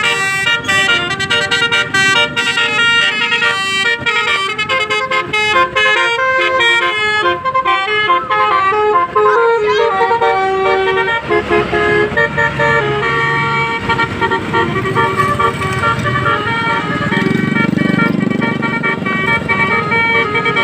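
Basuri multi-tone 'telolet' bus horn playing a melody: quick stepping notes for the first several seconds, then longer held chords of several tones together.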